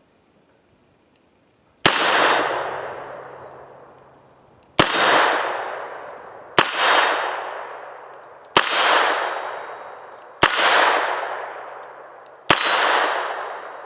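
Smith & Wesson Model 1917 .45 ACP revolver fired six times double action, the first shot about two seconds in and the rest roughly two seconds apart. Each shot is followed by a long echoing decay.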